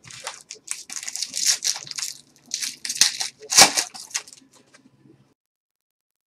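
Trading-card pack wrappers being torn open and crinkled by hand: a run of irregular crackling rustles that stops about five seconds in.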